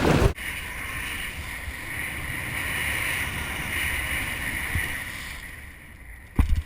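Wind buffeting the microphone, cut off abruptly just after the start, then a steady, quieter hiss of wind and sea, with a short loud gust on the microphone near the end.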